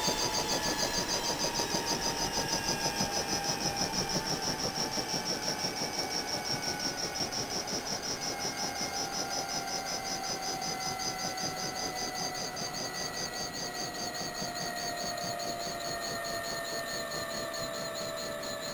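Bell 206 helicopter winding down after shut-off: the Allison 250 turbine's whine slowly falls in pitch while the rotor keeps up a fast, even pulsing, the whole sound gradually getting quieter.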